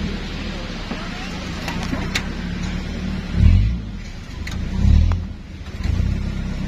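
Steady low rumble of city road traffic, with two brief louder low surges about three and a half and five seconds in.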